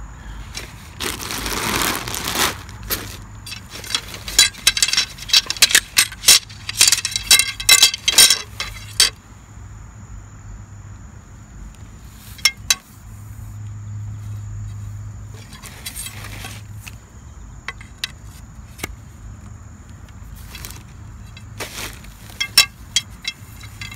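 Metal frame poles of a golf practice net clinking and knocking together as they are handled, with a quick run of ringing clicks a few seconds in and scattered clicks later. A short plastic-bag rustle comes near the start.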